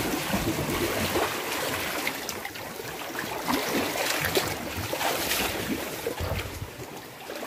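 Sea waves washing and trickling over a rocky shoreline, a steady rushing that swells and eases a little.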